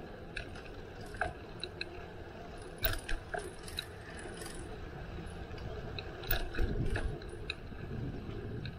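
Bicycle clicking and rattling while being ridden, with irregular sharp ticks and a heavier low rumble and knocks about six to seven seconds in.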